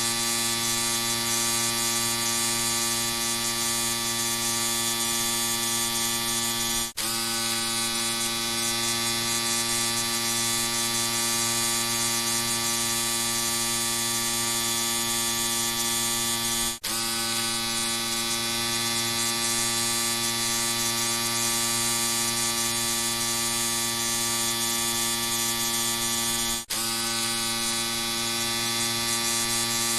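Electric shaver running with a steady buzz. It briefly drops out three times, about ten seconds apart, the pitch settling back each time.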